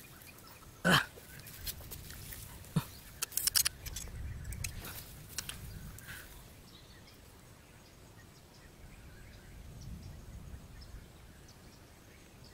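Sharp clicks and taps of bamboo sticks and string being handled while a stone deadfall trap is set, clustered between about three and four seconds in. One short loud cry about a second in is the loudest sound.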